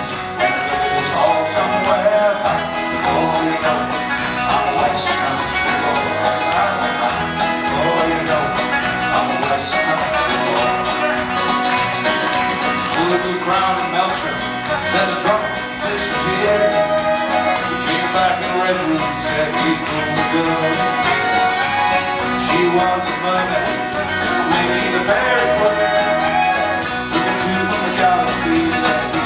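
Live folk band playing an instrumental passage of a bluegrass-flavoured song: banjo, fiddle, acoustic guitar, mandolin, accordion, electric bass and drums together at a steady, full level.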